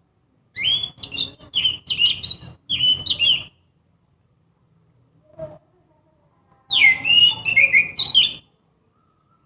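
Orange-headed thrush singing: a varied phrase of quick, clear whistled notes lasting about three seconds, a single short note, then a second, shorter run of notes.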